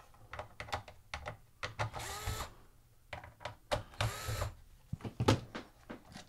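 Cordless electric screwdriver with a 7/32-inch socket backing out small screws: two short whirs of the motor, about two and four seconds in, each rising in pitch as it spins up, with clicks of the driver, socket and screws in between.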